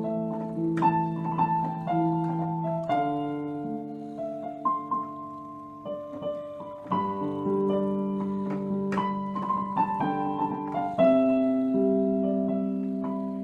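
Slow, soft chords played on an electronic keyboard with a piano sound, each chord held and left to ring before the next, changing about every one to two seconds.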